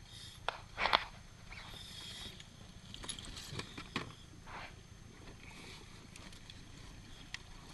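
Splashes and knocks as a scuba diver goes over the side of an inflatable boat into the sea, with his gear bumping against the boat. The loudest splash comes about a second in and more come around three to four seconds in, over a steady low rumble.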